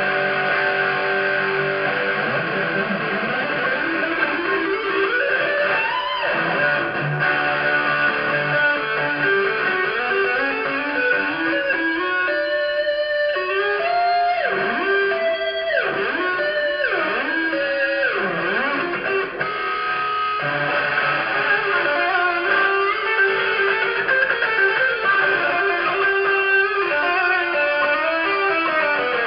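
Electric guitar solo with held and bent notes, and several quick swooping dives in pitch about halfway through.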